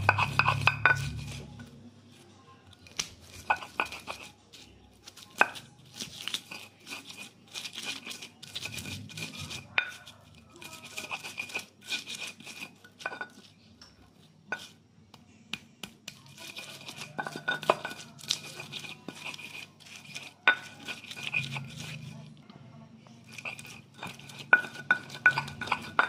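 Stone pestle (ulekan) pounding and grinding shallots, garlic, chillies and salt on a flat stone mortar (cobek), giving irregular knocks and gritty stone-on-stone scraping as the spice paste is ground.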